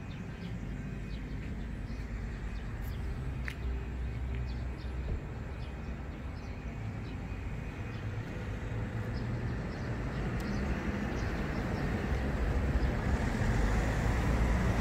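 Outdoor background noise: a steady low rumble that grows louder over the last few seconds, with a few faint short high ticks.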